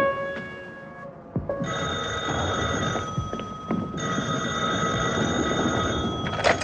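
Telephone bell ringing in two long rings of about two seconds each, with a short break between them. A fading chord of music is heard at the start, and a click comes near the end, just before the call is answered.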